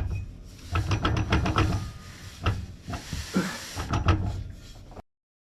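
A series of knocks and clatter over a rustling hiss, as of objects being handled, cutting off abruptly about five seconds in.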